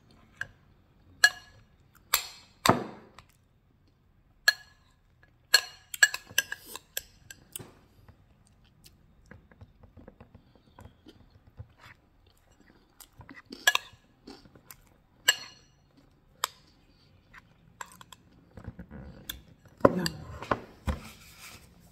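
Mouth sounds of someone eating cake and ice cream, chewing and smacking, with sharp clicks of a metal spoon against a ceramic bowl scattered throughout. A denser run of chewing comes near the end.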